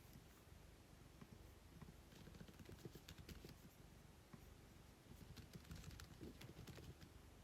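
Typing on a computer keyboard: soft key clicks in quick, irregular runs, busier after the first couple of seconds. Underneath is a cat's steady low purr.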